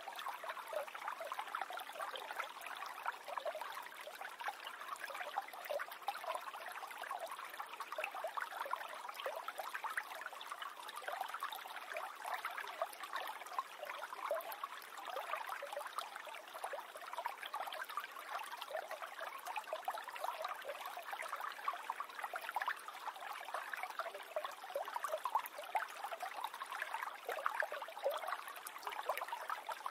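Water of a small stream flowing over stones, a steady babble thick with little splashes and gurgles.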